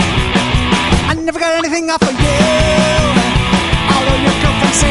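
Loud rock music with a steady beat. A little over a second in, the drums and bass drop out for about a second, leaving a wavering high line, and then the full band comes back in.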